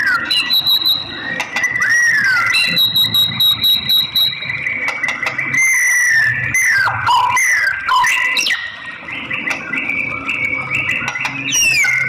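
White-rumped shama (murai batu) singing a varied song of clear whistles that slide up and down, broken by stretches of very fast repeated notes.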